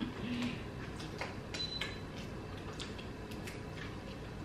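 Faint, scattered small clicks and cracks of a cooked crab's shell being broken apart and picked by hand.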